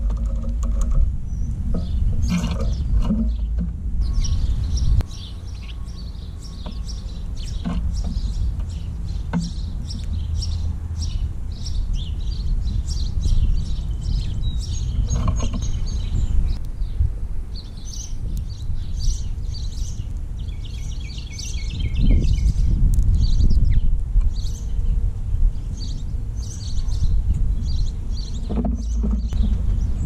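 Small songbirds chirping and twittering in quick, repeated high calls, with a fast trill about three-quarters of the way through, over a steady low rumble.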